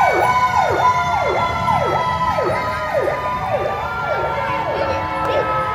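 Emergency vehicle sirens: one sweeps down and back up in quick cycles, a little under two a second, over a steady higher tone that slowly slides down in pitch as the vehicles pass.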